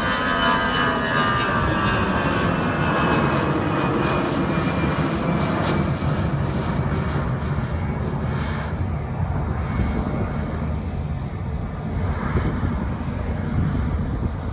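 Airbus A320-211's CFM56 turbofan engines at takeoff thrust: a buzzing whine of several tones that drift slightly lower and fade over the first few seconds, over a broad rumble that slowly dies away as the airliner climbs out.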